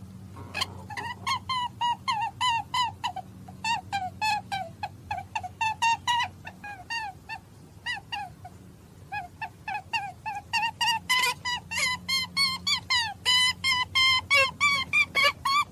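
Rabbit giving a rapid series of short, high squeaks, about three a second, with a pause about halfway through, over a low steady hum.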